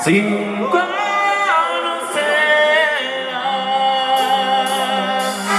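A live grupo's song intro: held sustained chords that change every second or so, with no drums or bass under them.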